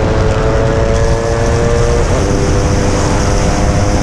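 Yamaha RX135's fully ported single-cylinder two-stroke engine running hard under acceleration, its note holding high and steady with a brief dip in pitch about two seconds in.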